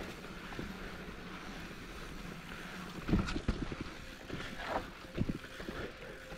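Wind on the microphone of a camera on a mountain bike riding a dirt trail, with the bike knocking and rattling over rough ground; a cluster of sharp knocks starts about three seconds in, a few more follow near the end.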